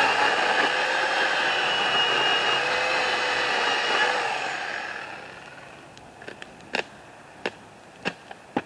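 A small petrol engine runs steadily, then fades away about four and a half seconds in. It is followed by a handful of sharp snaps over a low background.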